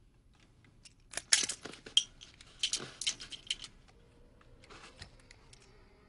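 Brass cartridges clinking against one another in a hand: a quick run of sharp metallic clicks starting about a second in, then a few lighter clicks.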